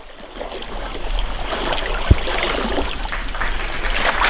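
Creek water rushing and splashing around a person wading in waders, swelling about a second in. One sharp low thump about two seconds in.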